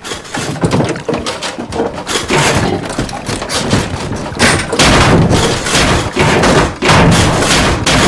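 A loud, dense run of thuds and crashes in quick succession, growing louder about halfway through.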